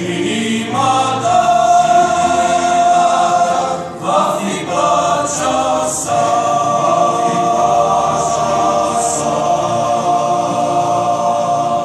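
Mixed church choir singing a hymn in Romanian, in sustained chords with a brief break about four seconds in, then one long held chord through the rest.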